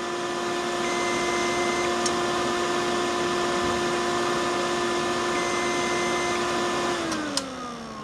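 Desktop PC's cooling fans running with a steady hum. Twice, about four seconds apart, a long high beep from the motherboard speaker sounds: a POST error beep code. About seven seconds in the power cuts and the fans spin down, their hum falling in pitch.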